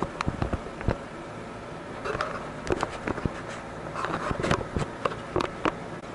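Hands handling a disassembled laptop and its replacement screen panel: irregular sharp clicks and taps of plastic and metal parts, clustered about two seconds in and again around four to five seconds in.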